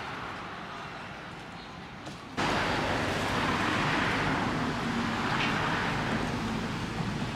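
Steady outdoor background noise, an even hiss like distant road traffic, that jumps suddenly louder about two and a half seconds in.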